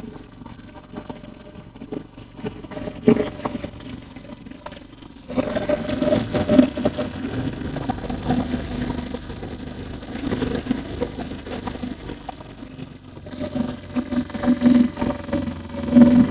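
An engine running steadily with a low hum, growing louder about five seconds in and dipping briefly near the end.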